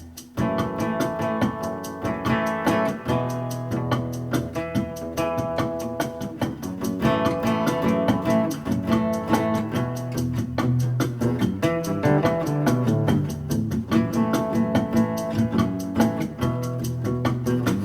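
Background music led by guitar, with a moving bass line under it.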